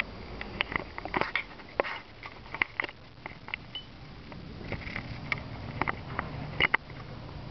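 A kitten at play: scattered, irregular light clicks and taps of its paws and claws, over a faint steady room hum.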